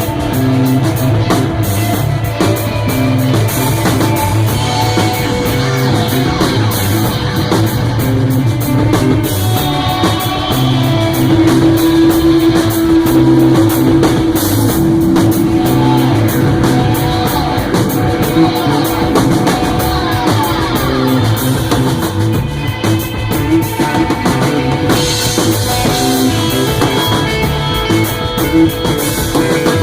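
Rock band playing live and loud: electric guitar, bass and drum kit, with one long held note near the middle.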